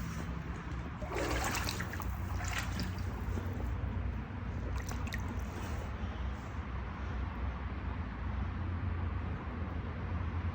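Shallow stream water trickling steadily under a low rumble, with two brief splashy disturbances of the water about a second in and again about two and a half seconds in.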